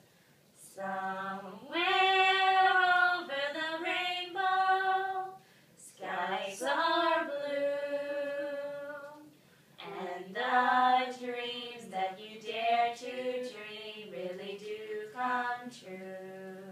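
Girls' voices singing a cappella: a slow melody of long held notes, in phrases with short pauses between them.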